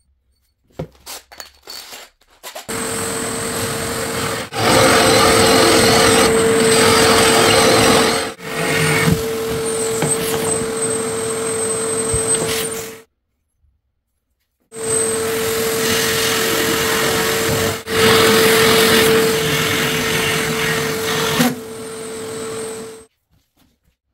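Cordless drill driving a carbide-tipped hole saw through a laminated board, cutting two holes: two long runs of about ten and eight seconds, a steady motor whine under the teeth rasping through the board. A few short clicks come just before the first cut.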